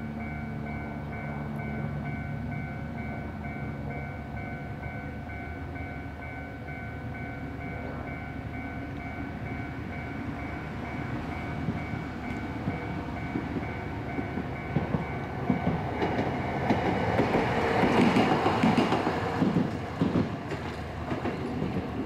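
Japanese level-crossing alarm ringing in a fast repeating electronic bell pattern, which stops about three-quarters of the way through as a Toden Arakawa Line 8800-series tram passes over the crossing. The passing tram is the loudest part, with its wheels clicking over the rail joints.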